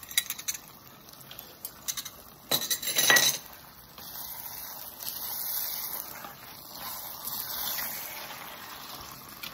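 A metal fork clinking and scraping against an enamelled pan as spices are stirred into chicken, with the loudest scrape about two and a half seconds in. From about four seconds on a steady hiss of the pan's contents sizzling on the heat comes through.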